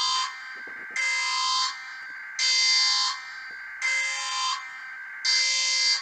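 Emergency alert system alarm: a harsh, buzzing electronic tone that pulses on and off about every one and a half seconds, each pulse lasting under a second, over a fainter steady tone.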